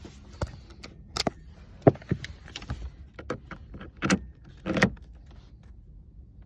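A string of light, separate metal clicks and taps, about eight of them at uneven intervals, from an Allen key being worked in the shift knob's retaining screw.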